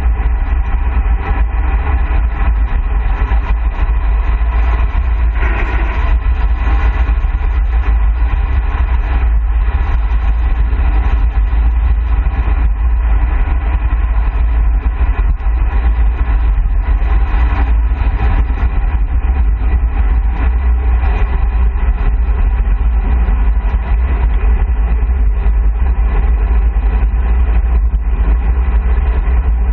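Wind rushing over a bike-mounted camera's microphone on a fast road-bike descent, a loud, steady low rumble mixed with tyre and road noise.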